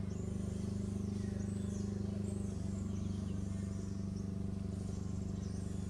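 A steady low mechanical hum, like an engine running, with faint high bird chirps and whistles over it.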